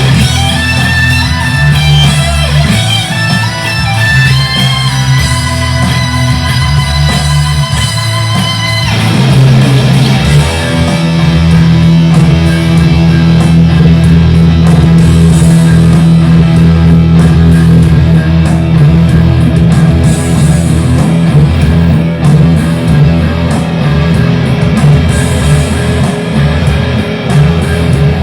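Electric guitar, a Fender Stratocaster played through a Boss Katana 100 amplifier, improvising single-note lines with wavering vibrato. About nine seconds in the pitch slides downward, and the guitar then settles into sustained low notes.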